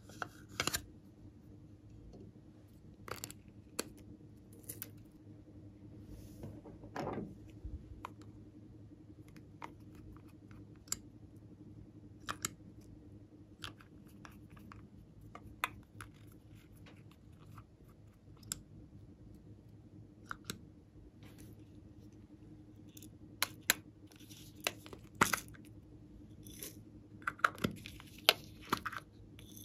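Hands handling small plastic cosmetic bottles and containers: scattered clicks and taps of caps and plastic, with one squeak falling in pitch about seven seconds in and a denser run of louder clicks near the end, over a faint steady hum.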